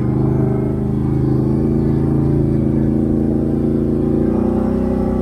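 Can-Am Outlander 650's Rotax V-twin engine running at a steady pace through an aftermarket Straightline Performance exhaust, a loud, even drone whose note shifts slightly a little after four seconds in.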